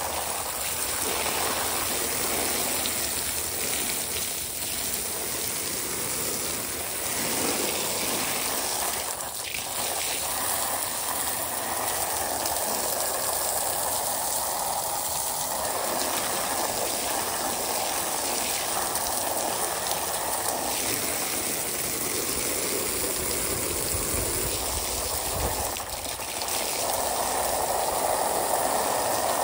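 Garden hose spraying a steady jet of water onto a fabric-covered pool filter grid and splashing off onto concrete, a little louder near the end.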